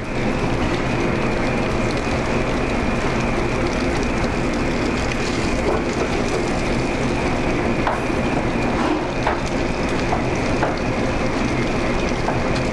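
Sesame-crusted tuna searing in a smoking-hot oiled pan on a gas burner: a steady sizzle over a low rumble, with a few light clicks of metal tongs from about halfway in as the fish is turned.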